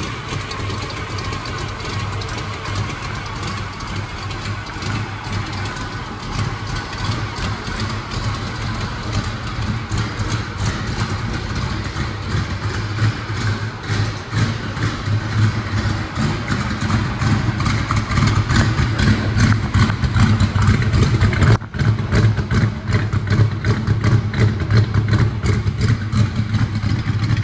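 Chevrolet 350 small-block V8 in a 1967 Camaro idling on a cold engine, with the uneven, loping beat of a performance camshaft. It gets louder through the second half, the exhaust coming to the fore.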